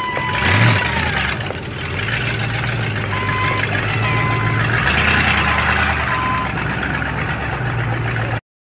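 Engines running at low speed while the reversing alarm of a Bobcat skid-steer loader beeps three times. A high held tone falls away about a second in. The sound cuts off suddenly just before the end.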